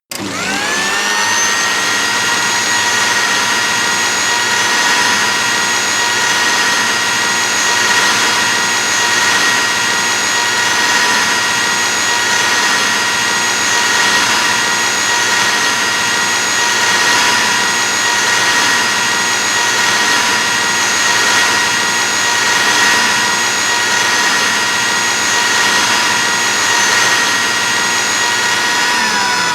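Electric kitchen blender motor switched on, spinning up within the first second and then running steadily at full speed with a high whine. Near the end it starts to wind down as it is switched off.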